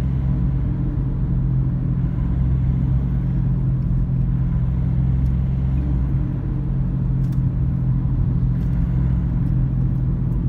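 Car engine and tyre noise heard from inside the cabin while driving: a steady low drone with no change in pace.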